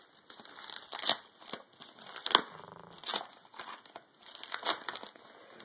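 Parcel packaging crinkling and rustling as it is opened by hand, with several sharp crackles at uneven intervals.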